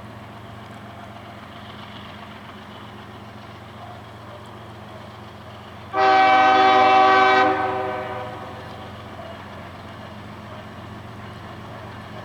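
CSX freight locomotive's multi-tone air horn sounds one loud blast, about a second and a half long, about halfway in. It rings over the steady low rumble of the slow-moving train.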